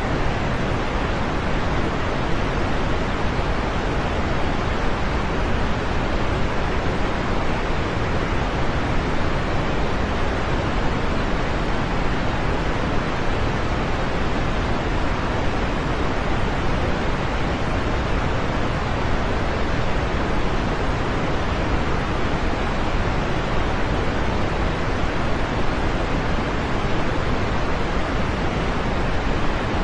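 Steady, dense rain falling, an even rushing hiss that never changes, with no separate drops, thunder or other sounds standing out.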